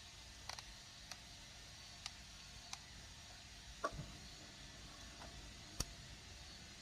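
Irregular small clicks and taps from printer parts and tools being handled during disassembly, about eight in all, with the sharpest near the end and a close pair in the middle, over a faint steady hiss.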